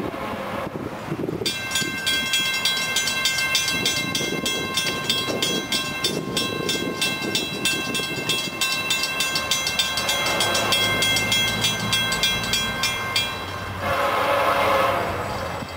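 Railroad grade-crossing bell ringing in rapid, even strokes while the gates are down; it stops about 13 seconds in. Near the end an FEC freight locomotive sounds its horn over a low engine rumble.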